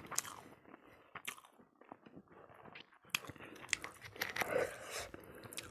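A person eating close to the microphone: biting and chewing with scattered sharp crunchy clicks and mouth smacks, busiest in the last couple of seconds.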